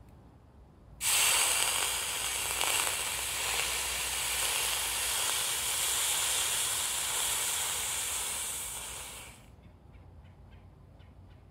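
Hot cast copper ingot quenched in a bucket of water: a loud sizzling hiss of boiling water and steam starts suddenly about a second in and lasts some eight seconds, fading away as the ingot cools.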